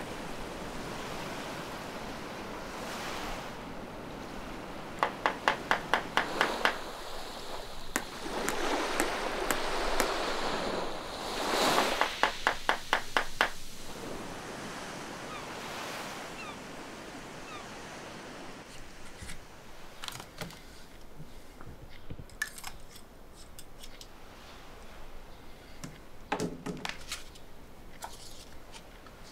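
Sea surf washing in, swelling and falling away several times, with two runs of rapid clicking on the swells. It then gives way to a quieter stretch of scattered small clicks and taps.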